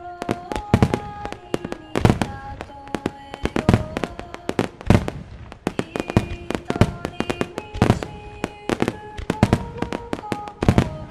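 Starmine fireworks barrage: a dense run of sharp shell bursts, several reports a second, with some louder booms among them. Music with held notes plays underneath.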